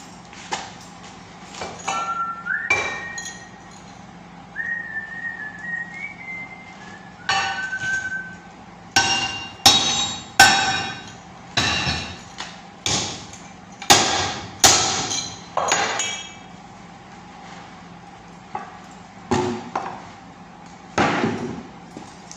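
A hammer striking a part clamped in a bench vise: about a dozen sharp, ringing metallic blows, coming in quick succession in the middle and a couple more near the end.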